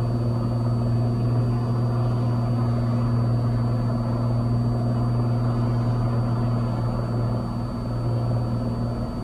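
Cessna 182 Skylane's engine and propeller droning steadily in cruise, heard from inside the cabin.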